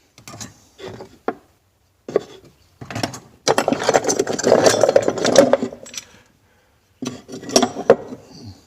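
Old metal hand tools clattering, rubbing and clinking against one another and the wood in a wooden tool chest as they are handled and rummaged through. There are several short bursts, with a longer, louder stretch of rattling in the middle.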